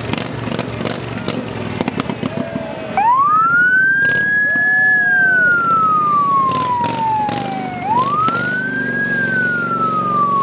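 Electronic emergency siren on a parade pickup truck, sounding in wail mode. About three seconds in it sweeps quickly up to a high pitch, then falls slowly over several seconds, and it starts a second rise-and-fall near the end. Before the siren there is a mix of noise and clicks.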